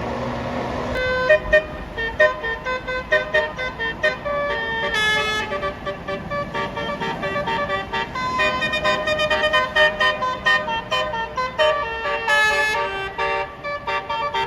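Bus 'telolet basuri' musical horn playing a fast tune of many short, pitched honked notes, starting about a second in.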